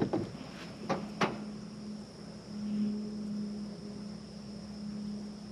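A few short knocks and clicks of hand tools on the combine header's metal parts, then a steady low hum sets in at about a second in and holds.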